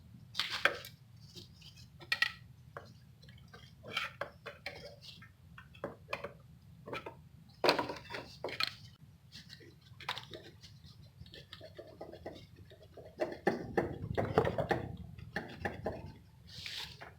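Metal hand tools clinking, knocking and scraping against a stuck alternator and its mounting as it is pried loose. The knocks are irregular over a faint steady hum, with a busier spell of clatter near the end.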